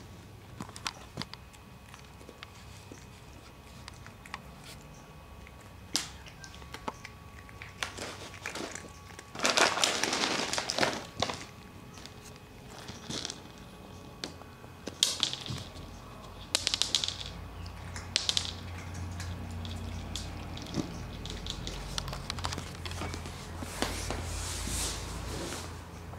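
Domestic cats crunching dry kibble close by, with scattered clicks on a hard floor. There are several louder noisy bursts, the biggest about ten seconds in.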